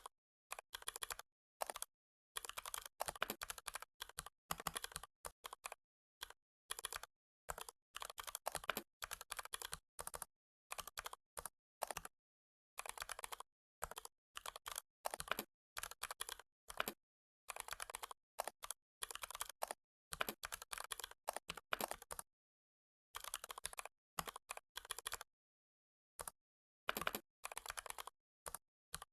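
Computer keyboard typing in quick runs of keystrokes, broken every second or two by short pauses of dead silence.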